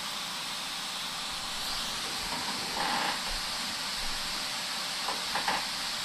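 Top-load washing machine in its spin cycle, the basket turning with clothes flung against its wall: a steady hiss of spinning basket and water, with a few brief faint knocks in the second half.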